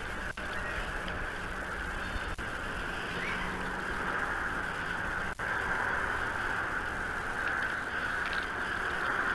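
Steady rushing outdoor background noise on the nest camera's microphone, broken by three very brief dropouts.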